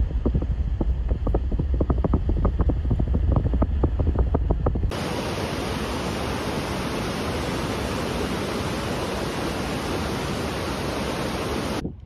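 Wind buffeting the microphone with a low rumble and crackling. About five seconds in, this gives way to the steady, even rush of fast-flowing water, such as a waterfall or mountain stream, which cuts off abruptly near the end.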